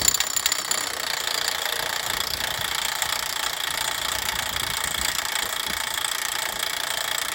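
A machine running steadily, an even drone with a constant high whine and no pauses or strikes.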